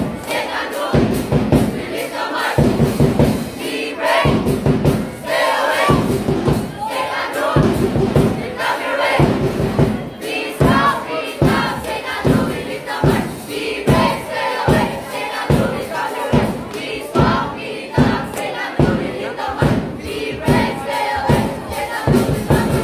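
Loud cheer-dance music with a heavy, steady beat, and a crowd of voices shouting and cheering over it.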